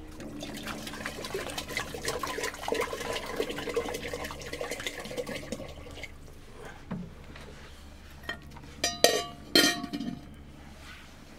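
Water sloshing and crackling in a clay cooking pot over a wood fire, busy for the first six seconds or so and then quieter. Near the end come two ringing metal clanks close together as a steel plate and bowl are set on the pot as a lid.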